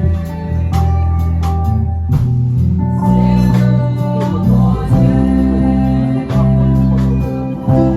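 Worship music played by a band: guitar over held chords and a strong bass line, with regular strums or beats.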